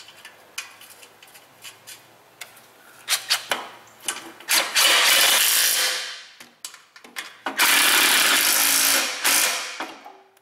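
A 20-volt cordless power tool runs twice, each run lasting about one and a half to two seconds, tightening the nuts on a car's exhaust flange. Light metal clicks come first, as the nuts are started by hand.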